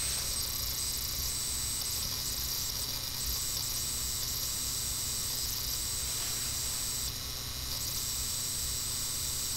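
Steady hiss of the recording's background noise, with a faint constant high-pitched whine and a low hum underneath; no other sound stands out.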